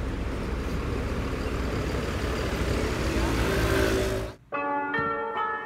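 Road traffic passing close, a bus and then a taxi, making a steady low rumble and hiss. The traffic cuts off suddenly about four seconds in, and plucked-string music starts.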